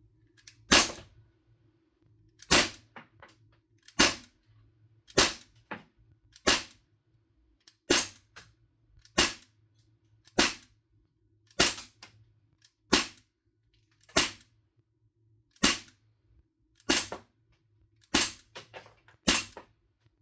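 Daisy CO2-powered BB gun fired semi-automatically, about fifteen sharp pops spaced a little over a second apart, several followed by fainter ticks.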